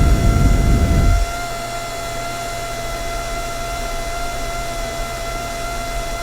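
Air rushing out of a dryer vent, loud and rumbling, cuts off suddenly about a second in. A steady machine hum with a constant high whine carries on after it.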